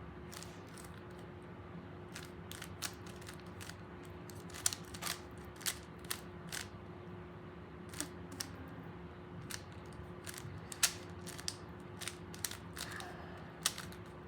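Rubik's Cube layers being twisted by hand during a solve: irregular plastic clicks and snaps, several in quick runs, over a steady low hum.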